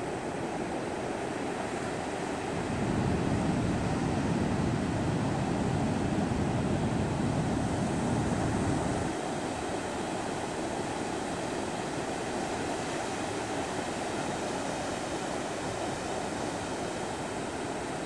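Heavy ocean surf breaking on a sandy beach: a continuous rush of waves. About three seconds in it swells louder and deeper for several seconds, then settles back to a steady wash.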